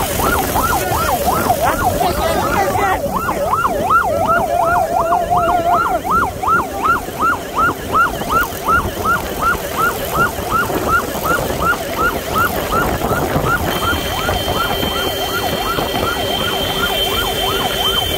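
Electronic siren of a motorcycle ambulance sounding a fast yelp, rising sweeps repeating about two to three times a second, over the noise of motorcycle engines and road traffic.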